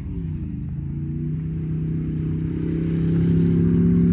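Car engine running under throttle, its note rising a little and growing steadily louder toward the end, as if the car is accelerating or passing close by.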